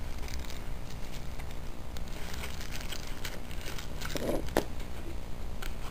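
Clear plastic packaging around a small camera crinkling, with a few scattered sharp clicks, as it is handled and set down on a table, over a steady low background rumble.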